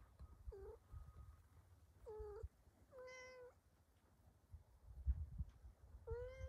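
Young kittens mewing: four short, high calls, the longest about three seconds in and a rising one near the end, over low rumbling noise.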